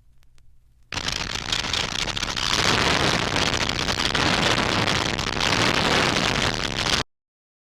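A science-fiction noise effect from a 1958 sound-effects record: a loud, dense rushing hiss that starts abruptly about a second in, grows fuller a little later, and cuts off suddenly near the end. A faint low hum from the record comes before it.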